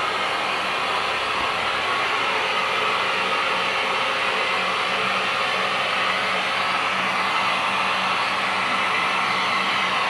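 Vacuum cleaner running steadily, air rushing through its metal wand with a constant hiss and a faint motor hum underneath.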